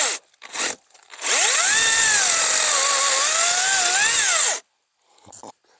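Makita 18V cordless chainsaw: a short burst at the start, then the electric motor spins up with a rising whine and cuts into a small limb. Its pitch sags under the load in the middle and rises again before it stops suddenly about four and a half seconds in. The saw has to be spun up before it touches the wood, because it lacks the power to start a cut from a standstill.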